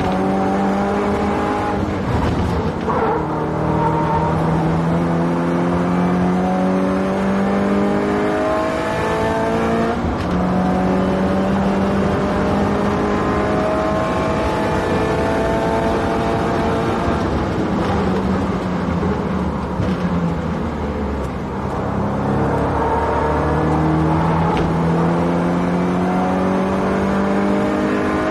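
Subaru Impreza WRX STI's turbocharged flat-four engine driven hard on a fast lap, its note climbing again and again as it pulls through the gears and dropping back at each shift. The revs ease off briefly about three quarters through, then climb again.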